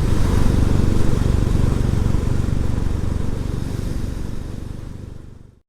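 Royal Enfield Classic 350's single-cylinder engine running with wind rush, fading out to silence near the end.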